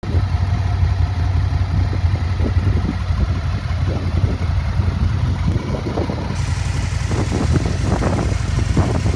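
2003 Aprilia Tuono Fighter's 998 cc 60-degree V-twin idling steadily through an Aprilia Racing silencer.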